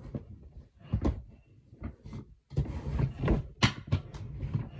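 Close-by knocks and bumps of a household object being handled and forced, with a denser run of clattering and rattling in the second half and one sharp click partway through, as something broken is being worked at and refitted.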